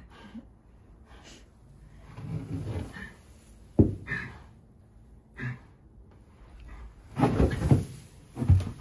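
Foaling mare shifting and rolling heavily in straw bedding: rustling and dull thumps, with a sharp knock about four seconds in and heavier thudding near the end as she heaves herself up.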